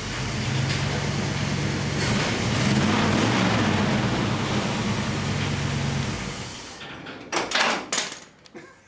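Early-1970s Ford F-250 pickup's carbureted engine idling, rising in pitch briefly about two seconds in, then shut off about six and a half seconds in. A few clunks follow near the end as the driver's door opens.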